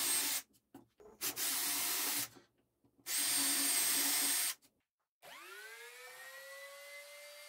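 Cordless drill boring into a pine board in three bursts of one to one and a half seconds each. About five seconds in, a trim router's motor spins up with a rising whine and settles into a steady run.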